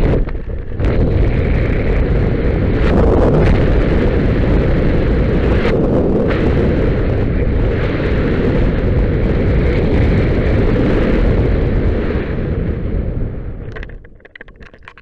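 Wind buffeting a helmet-mounted camera's microphone during a parachute descent, a loud, steady rushing with gusty flutter. It dies away quickly near the end as the skydiver lands, leaving a few short crackles.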